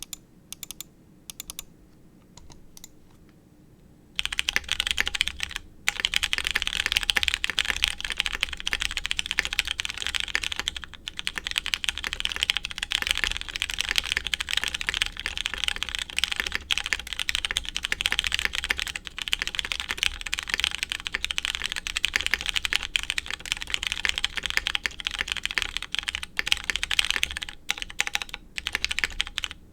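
Mechanical keyboard with lubed Hyperglide MX Brown switches, a polycarbonate plate, no case dampener and DCS keycaps being typed on: a few separate keystrokes at first, then steady fast typing from about four seconds in.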